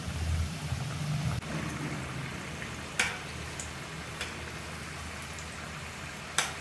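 Samosas deep-frying in hot oil in a cast iron kadai: a steady sizzle of bubbling oil. Two sharp knocks stand out, about halfway and near the end.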